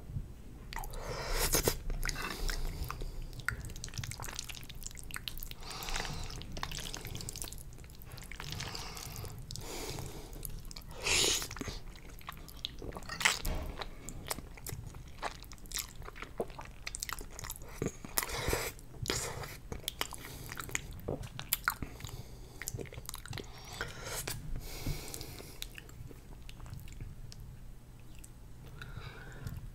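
Close-miked chewing and slurping of fettuccine noodles in a creamy sauce: wet mouth smacks and clicks throughout, with a few louder slurps about a second and a half in, near the middle and again a little later.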